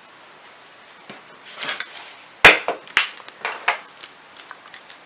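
Metal knitting needles clicking and tapping against each other as the knitting is handled, with a rustle of yarn first. One sharp click comes about two and a half seconds in, followed by several lighter clicks.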